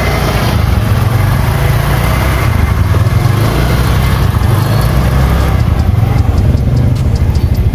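Motor scooter engine running close by, a steady low rumble with a fast even pulse.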